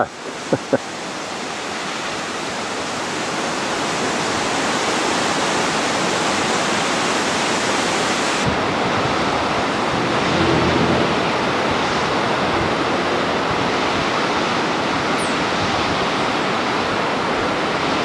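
Steady rush of falling water from a waterfall, an even hiss without breaks that grows a little louder over the first few seconds.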